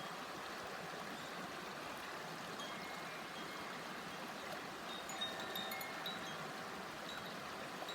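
Koshi chime, a tuned bamboo wind chime, ringing in scattered clear notes that gather into a cluster about five seconds in, over the steady babbling of a shallow river.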